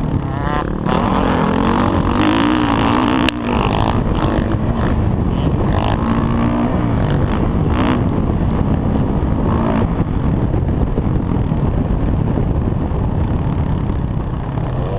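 Dirt bike engine from the rider's own motocross bike, revving up and down repeatedly as the throttle is worked over the jumps and turns, with a rush of noise underneath. A sharp knock about three seconds in.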